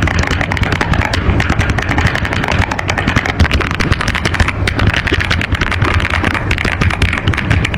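Fast, continuous typing on an AULA F87 Pro V2 mechanical keyboard: a dense, steady clatter of keystrokes.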